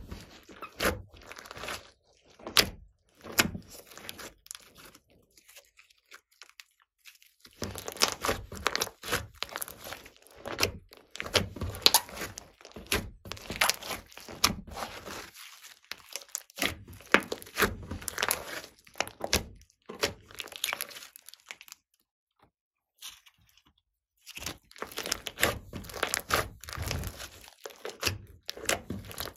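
Hands kneading and stretching glossy slime: bursts of sticky crackling and popping, broken by two short pauses.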